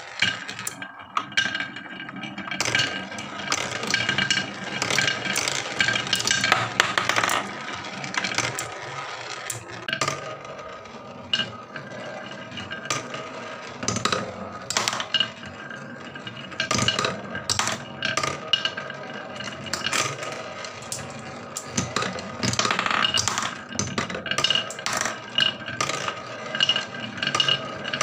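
Marbles rolling along a wooden marble run, a steady rolling rumble broken by many quick clicks and clacks as they knock against the wooden track and each other. The clatter is busiest a few seconds in and again a few seconds before the end.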